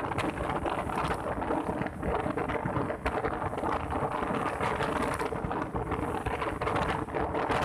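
Wind rushing and buffeting over the microphone on a moving motorbike, a steady rough rumble with the bike's engine and tyre noise underneath.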